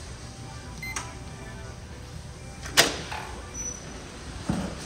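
A short electronic beep from the shower-room door's code keypad about a second in. Then, almost two seconds later, a loud sharp clunk of the door's lock and metal lever handle, and a softer thump near the end as the door is opened and swung.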